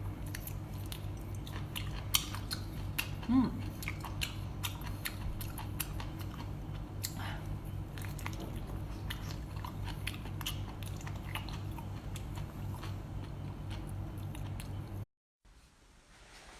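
Close-miked chewing and biting of seafood: sharp wet clicks and crunches, irregular, over a steady low hum. The sound drops out suddenly near the end.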